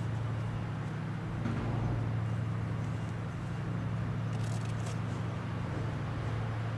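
Patrol vessel's engines running with a steady low drone as the ship approaches at speed, with a few faint high ticks about four and a half seconds in.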